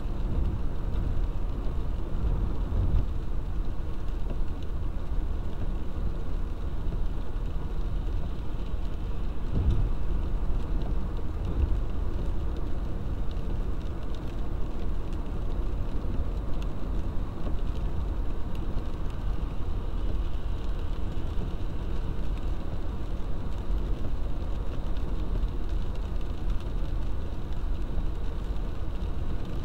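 A car driving on a wet road in the rain, heard from inside the cabin: a steady low rumble of engine and tyres with a hiss of spray and rain.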